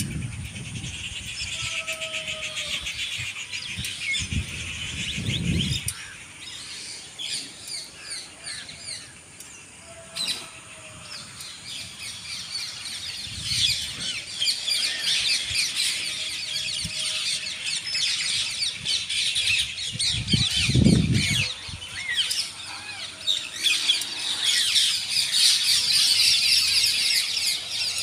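A dense chorus of many small birds chirping rapidly in a tree canopy, growing busier and louder in the second half. Three brief low rumbles break in: one at the start, one about five seconds in, and one about two-thirds of the way through.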